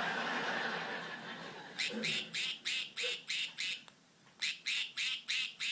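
Budgerigar giving rapid runs of short, quack-like calls, about four a second, copying the quack of its toy duck; two runs, the second starting near the end. A rush of noise comes before the first run.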